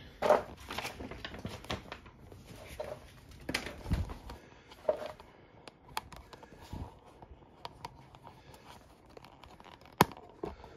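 Rustling and scattered clicks and knocks of a phone camera being handled and moved about, with a low thump about four seconds in and a sharp click near the end.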